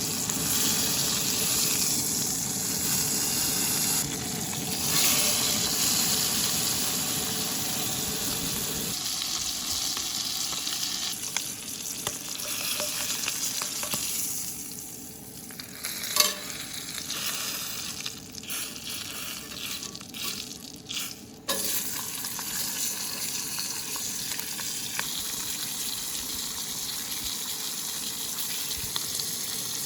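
Bacon-wrapped filet mignon sizzling in butter in a pan: a steady frying hiss that thins out about nine seconds in, with a few brief dips partway through.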